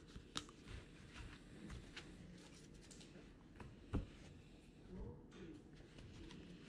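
Faint handling of trading cards: soft clicks and ticks as the cards are flipped through, with one sharper tap about four seconds in.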